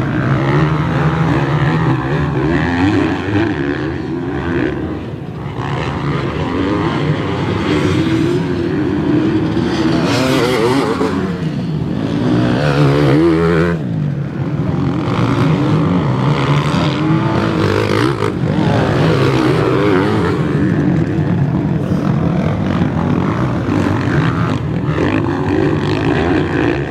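Several motocross bikes racing on a dirt track, their engines revving up and falling back with each throttle change and shift. The sound is loudest about halfway through, as a group of bikes comes through.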